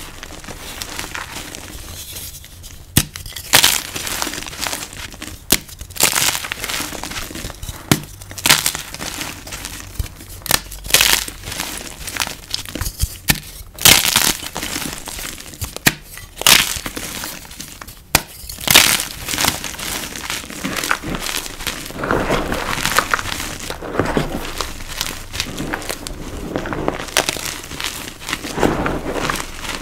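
Powder-coated chalk blocks crushed in the hands: sharp cracks and snaps as pieces break off, every second or two, with gritty crumbling and soft powdery squishing between them. The crumbling runs on almost without a break near the end.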